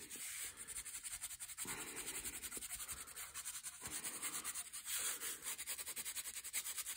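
Yellow watercolour pencil scratching across brown card in quick back-and-forth colouring strokes, several a second.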